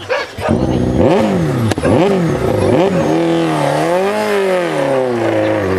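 Rally car engine revving in several quick bursts, then one longer rise and fall before settling to a steady pitch, as the car's wheels spin in deep snow.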